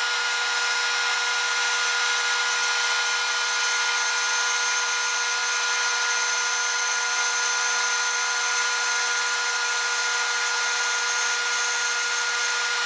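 Band saw running and slicing a block of black PVC: a steady whine over a hissing cutting noise that holds level throughout, the blade cutting smoothly without bogging down.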